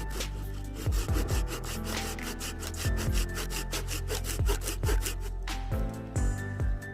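Hand saw cutting through fallen wood for firewood in quick, even back-and-forth strokes, which stop near the end, with background music underneath.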